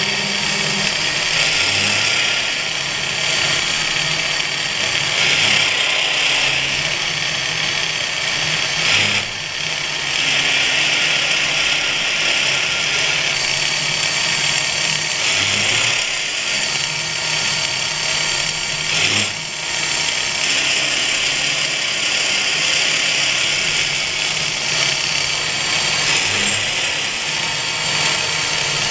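12 mm carbide end mill side-milling steel on a CNC-retrofitted XQ6232A knee mill, at 1500 rpm with a 25 mm deep, 2 mm wide cut. A steady cutting noise runs over the spindle hum, with brief dips about nine and nineteen seconds in.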